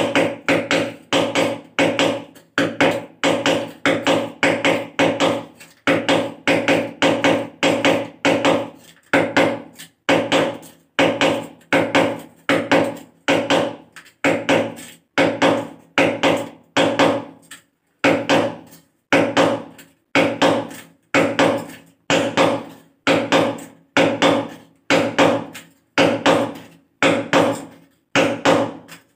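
Hammer striking the end of a screwdriver held against a ceramic wall tile, a steady run of blows a bit more than one a second with a few short pauses, each blow giving a brief metallic ring. The screwdriver is being driven to chip a hole through the tile for a wall plug.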